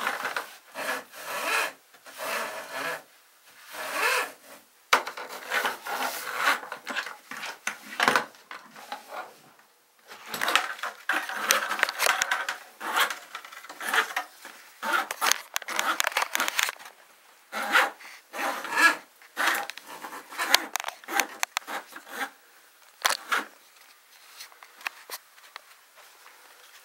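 Rough rubbing and scraping strokes in irregular bursts, dying away about 23 seconds in.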